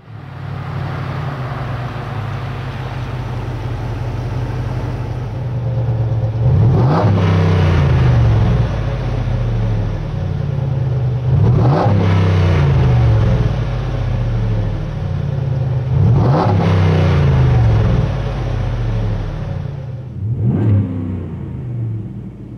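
Ford F-250/F-350 Super Duty 6.2-litre V8 through a Flowmaster Force II stainless cat-back exhaust with a 50 Series muffler, idling, then revved three times. Each rev climbs quickly, holds for about two seconds and drops back to idle, and there is a short blip near the end.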